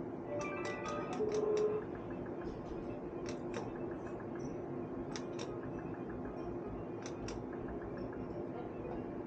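Bar slot machine's electronic sound effects: a short run of stepped beeps in the first two seconds, then scattered sharp clicks over a steady low hum.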